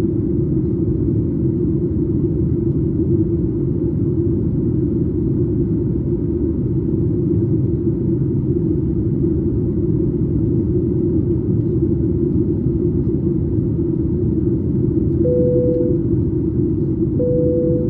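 Steady in-flight cabin rumble of a Boeing 737 MAX 8, engine and airflow noise heard from a window seat just behind the wing. Near the end, two short steady tones at the same pitch sound about two seconds apart.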